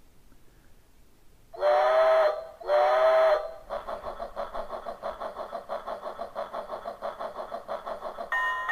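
Telemania Crescent 1925 locomotive novelty telephone playing its electronic train-sound ringtone: two loud steam-whistle blasts, then a fast, even steam-engine chugging. Near the end the phone's ordinary electronic ring tone starts, a steady two-tone ringing.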